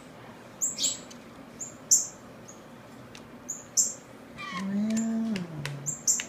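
Fledgling songbirds chirping: short, very high chirps every half second or so, with a few faint clicks. About two-thirds of the way through, a person hums a wordless "mm" that drops in pitch.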